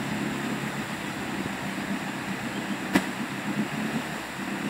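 Off-road 4x4 engine running steadily in the bog, with a sharp click about three seconds in.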